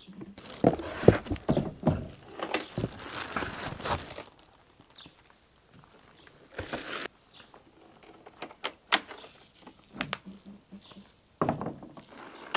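Plastic wrapping rustling and crinkling as a lithium battery is lifted out of its bag, with sharp knocks. Then, after a quieter stretch, scattered clicks and thuds as the battery and its packaging are handled.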